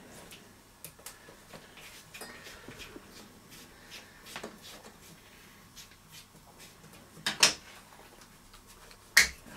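Handling of a rubber UK 13-amp mains plug as a screwdriver undoes its cover screw and the cover comes off. Small clicks and scrapes come first, then two sharp clacks near the end.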